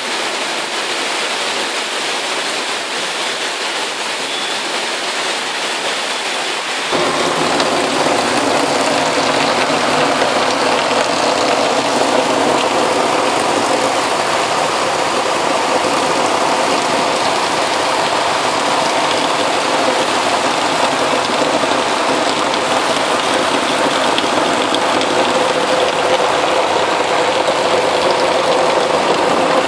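Heavy rain pouring steadily onto a street and rooftops. About seven seconds in, the sound abruptly gets louder and fuller, and a steady engine hum runs under the rain.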